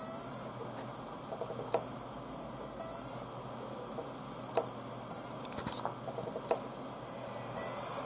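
Computer keyboard typing over a steady hiss: scattered, irregular key clicks, some single and some in quick little runs.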